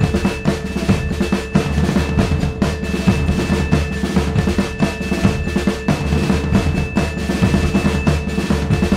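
Background music with a busy drum-kit beat over steady held tones.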